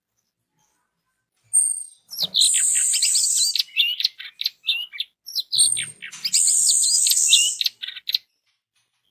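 Orange-headed thrush (anis merah) singing: after a second or so of silence, two long phrases of fast, high, rising and falling notes, each lasting about three seconds, the second ending about a second before the end.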